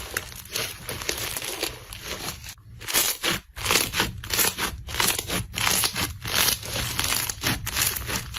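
Slime being squeezed and pressed by hand, giving a dense run of crackles and pops that comes quicker and louder from about three seconds in.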